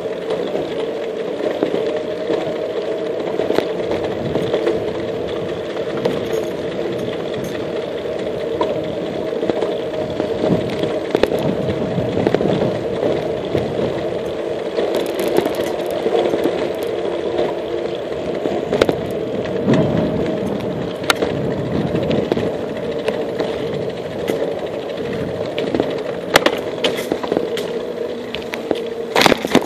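Bicycle rolling along a paved path: steady tyre and riding noise with scattered rattles and clicks from the bike.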